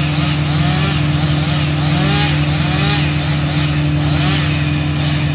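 A motor running steadily with a low hum, with short rising-and-falling whines repeating over it.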